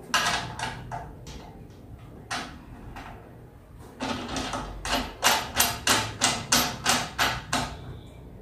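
Sharp clicks and rattles as a drum seeder's wheel is fitted onto its axle and the fitting at the hub is turned by hand, with a few clicks early and a steady run of about three clicks a second in the second half.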